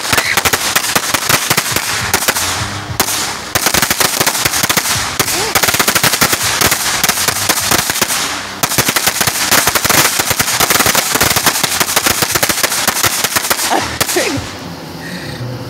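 Consumer firework crackling: a fast, dense run of sharp pops, many a second, with a couple of brief lulls, that stops about fourteen seconds in.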